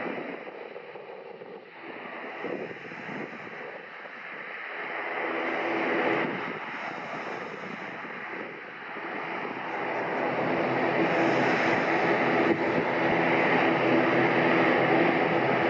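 Two rear-mounted turbofan engines of a Mitsubishi CRJ-702ER regional jet during its landing roll, heard from afar as a rushing noise that grows steadily louder. In the last several seconds a steady hum of engine tones comes up over the rush.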